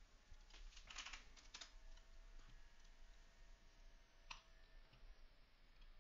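Faint computer keyboard typing: a quick run of a few keystrokes about a second in, then a single sharper click a little over four seconds in.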